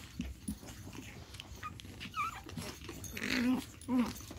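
Pug puppies vocalising as they wrestle: a short high whine about two seconds in, then several short play growls and yips near the end, over small scuffling and rustling.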